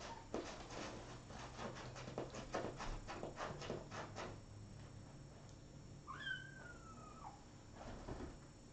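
A six-week-old kitten scratching and digging in cat litter in a litter box, a quick run of scratches for about four seconds. About six seconds in it gives one drawn-out squeaky meow that slides down in pitch.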